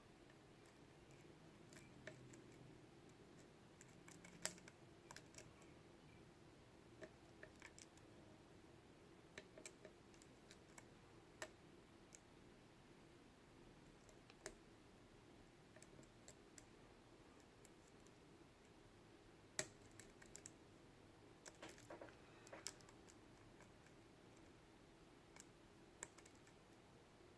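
Faint, irregular metallic clicks and ticks of lock picks and a tension wrench working the pins of a Mul-T-Lock Jr. padlock core, with a sharper click about four seconds in and another near twenty seconds in.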